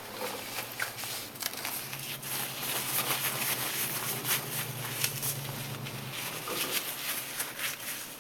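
A pet moving about close by: scattered small clicks and rustles over a low steady hum that stops about six seconds in.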